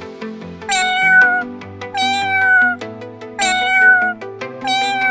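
Electronic music with a steady beat and a sampled cat meow repeated four times in time with it. Each meow lasts under a second, and the repeats are copies of the same recording.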